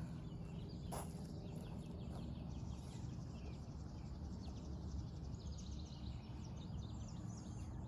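Small birds chirping in quick, faint repeated calls over a steady low outdoor rumble, with a single knock about a second in.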